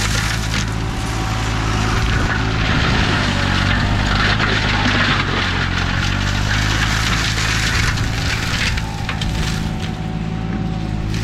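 Green Climber remote-controlled slope mower running steadily on its Kohler engine, its flail mulching head spinning, with scattered crackling of woody debris.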